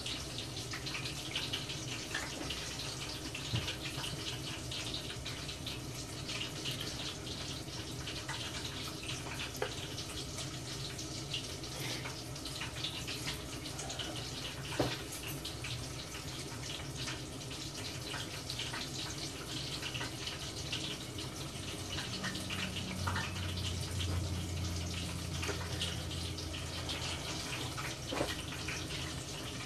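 Breaded coconut shrimp frying in hot oil: a steady sizzle with fine crackles. A low hum joins for a few seconds in the later part.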